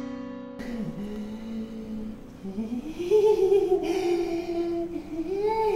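A held musical chord fades out in the first half-second. Then a man hums a slow, wavering tune, low at first and rising in pitch about halfway through.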